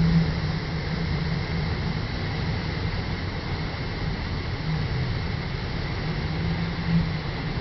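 Waterfall pouring, a steady rush of falling water with no breaks.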